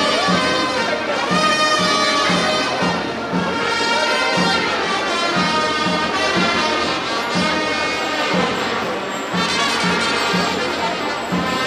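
Wind-band music: horns play a melody over a steady beat of about two strokes a second.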